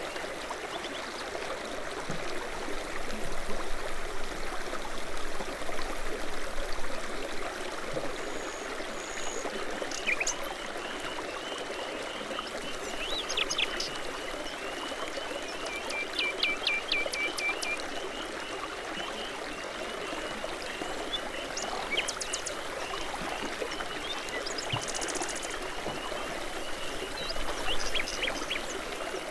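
Babbling brook running steadily, with songbirds singing over it in short chirps and trills. One bird's rapid, repeated chirping runs on from about a third of the way in.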